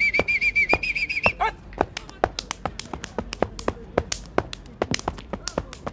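Pantsula footwork: sneakers stamping, tapping and slapping on hard dusty ground in a quick, irregular rhythm of sharp hits. A wavering whistled note is held over the first second and a half.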